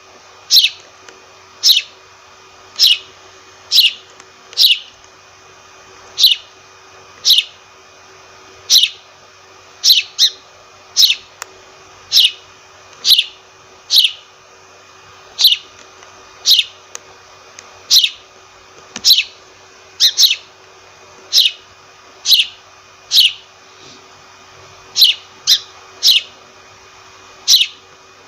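A sparrow chirping: short single chirps about once a second, each a quick downward sweep, now and then two in quick succession, over a faint steady hiss.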